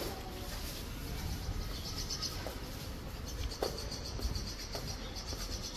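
Outdoor ambience with high, rhythmic chirping in short bursts several times over a low rumble, and a few soft knocks.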